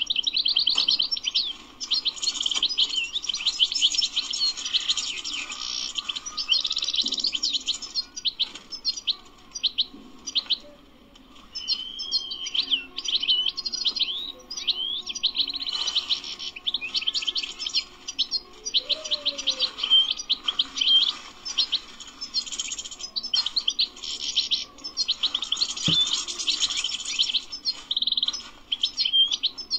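European goldfinch singing: a fast twittering song of dense, quick high chirps and trills, with a short lull about ten seconds in before it resumes.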